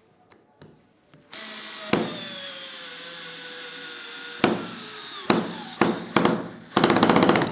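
Bosch GO cordless screwdriver driving a screw: the motor whines steadily, its pitch sagging slightly under load, with a sharp knock about two seconds in. Near the end, with the screw fully seated, the motor keeps turning and the bit jumps in the screw head with a few knocks and then a fast rattle, stripping the head.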